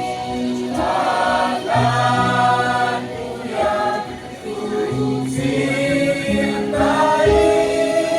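A choir singing in several voice parts, holding long notes that change every second or so, with a short dip in loudness about halfway through.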